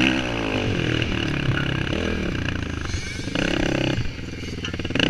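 Suzuki LT-R450 quad's single-cylinder four-stroke engine under a riding load, its revs falling and rising several times as the throttle is worked, with surges about three seconds in and again near the end.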